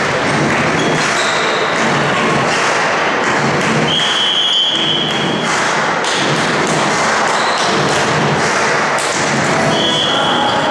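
Volleyball match play in a sports hall: repeated thuds of the ball being hit and landing, over a loud steady din, with a held high whistle-like tone about four seconds in and again near the end.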